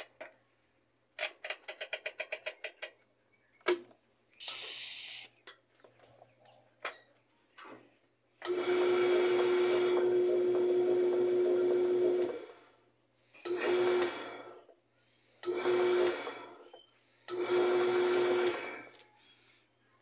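Washing machine motor driving the transmission pulley by belt in the wash direction: a steady whirr with a hum runs for about four seconds, then starts and stops three more times in runs of about a second each. Earlier comes a quick series of light clicks and a brief hiss.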